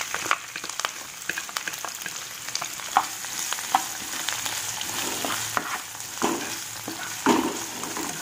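Chopped onions and green chillies sizzling in hot oil in a non-stick pan, stirred with a plastic spatula that scrapes and taps against the pan, with a few louder knocks about 3 seconds in and near the end.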